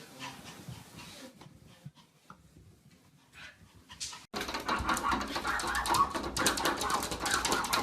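A dog's sounds: faint for the first few seconds, then about four seconds in the sound cuts abruptly to a much louder stretch of rapid, crackly noise.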